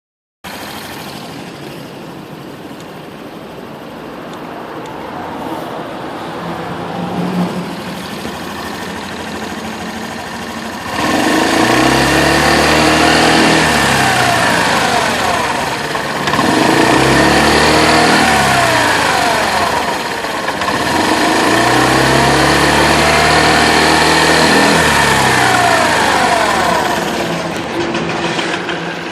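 Honda Lead 125 scooter's single-cylinder engine idling, then revved up three times, its pitch rising and falling back each time before settling to idle. The owner records it for an abnormal noise (異音) from the scooter.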